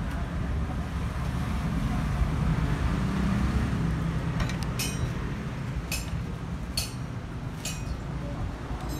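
A steady low rumble like distant road traffic, with four short sharp clicks in the second half.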